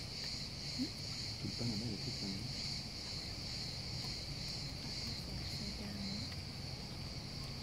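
Steady, high-pitched chirring of insects over a low, even rumble.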